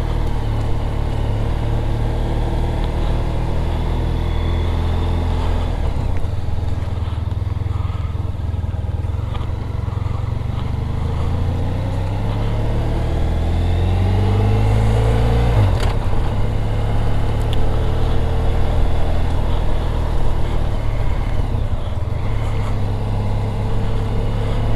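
Motorcycle engine running at low speed under the rider; its revs climb from about twelve seconds in and drop sharply just before sixteen seconds, then it carries on steadily.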